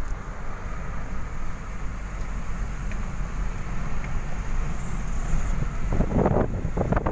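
Steady low rumble of a Toyota car driving along a road, heard from inside the cabin, with wind buffeting the microphone; the buffeting grows stronger about six seconds in.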